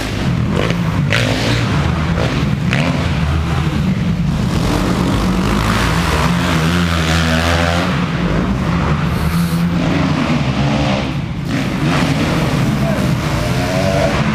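Motocross dirt bike engines running and revving on an indoor dirt track, the pitch rising and falling as riders open and close the throttle, with a clear rev-up and back-off about midway and again near the end.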